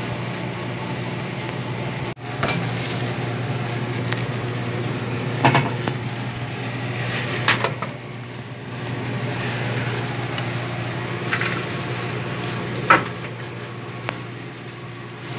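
A rodent bait station being fitted into place, giving several sharp knocks and clatters a couple of seconds apart, the loudest near the end. A steady low machine hum runs underneath.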